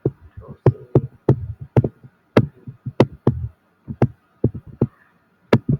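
Computer keyboard being typed on close to the microphone: irregular sharp clicks, each with a low thump, a couple of keystrokes a second.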